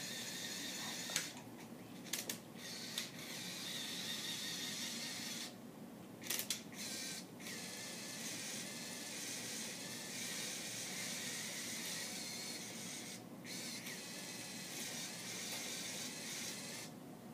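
Lego 8043 motorized excavator's electric motors whirring through plastic gears, stopping and restarting several times, with a few sharp clicks as they stop and start.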